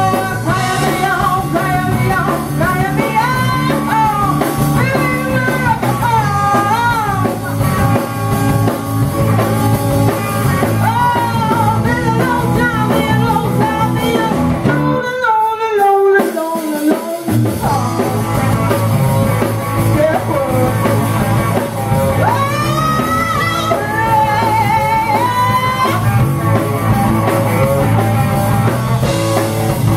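Live rock and roll band: a woman singing lead over electric guitar, bass and a drum kit. About halfway through, the drums and bass drop out for a moment under a falling slide in pitch, then the band comes back in.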